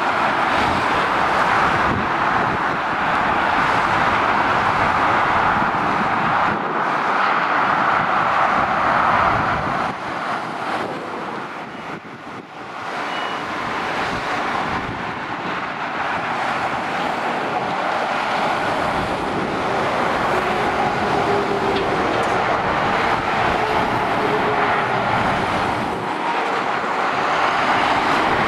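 Motorway traffic of heavy lorries and cars passing, a steady rush of tyre and engine noise that eases briefly near the middle.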